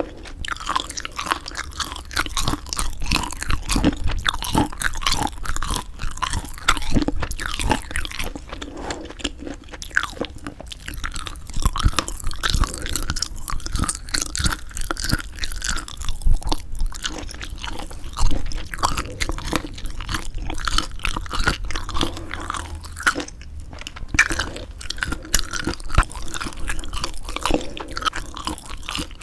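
Close-miked chewing of semi-dried squid: continuous wet, chewy mouth sounds with small crunches and bites.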